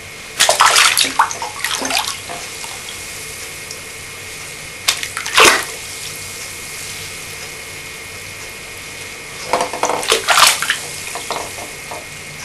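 Bathwater splashing and sloshing in a bathtub as a small child's hands move in it, in short bursts about half a second in, around five seconds, and again around ten seconds, over a steady faint hiss.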